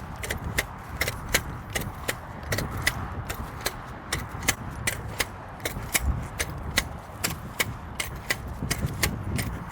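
Rifle M50 staple gun clacking as staples are driven in quick succession, sharp clicks coming several times a second at an uneven pace, over a low rumble.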